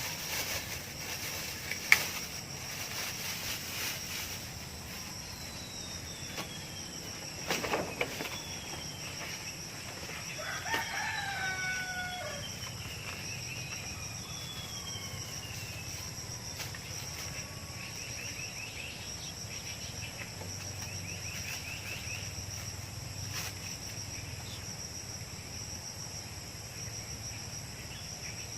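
A rooster crows once, about ten seconds in, over a steady high chorus of insects, with several falling whistled bird calls around it. A single sharp click about two seconds in is the loudest sound.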